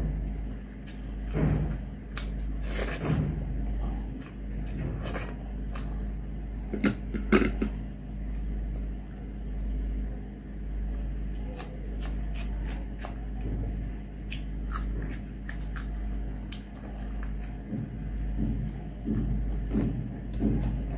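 Eating by hand: fingers mixing rice and curry on a metal plate and chewing, with many small wet clicks and smacks over a steady low hum.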